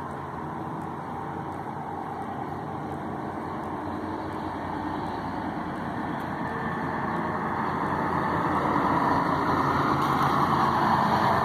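Scania-chassised coach's diesel engine pulling away up the road, growing steadily louder as it draws near and passes close in the last few seconds.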